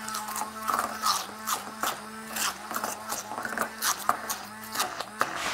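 Hand-held immersion blender running in a glass bowl of cream cheese and chipotle peppers: a steady motor hum with many irregular clicks and knocks as the blade head works against the glass, switched off near the end.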